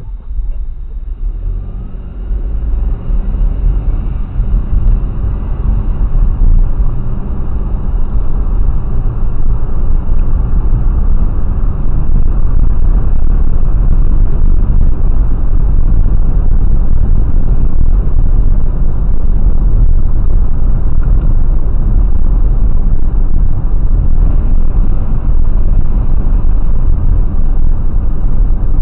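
A car driving: engine and tyre noise that grows louder over the first ten seconds or so as it picks up speed, then holds at a steady, loud rumble.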